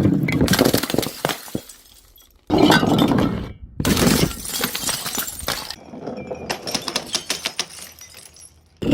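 Glass bottles breaking in a string of separate crashes, each sudden smash trailing off into the crunch and tinkle of shards.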